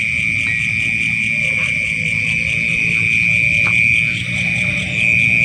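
Night insects in rice paddies trilling as one continuous, high, steady buzz with a fine pulse, over a low rough background noise.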